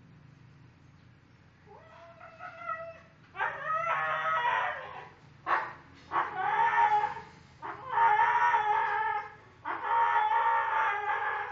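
Rooster crowing, one long crow after another: a faint one about two seconds in, then four loud ones in quick succession.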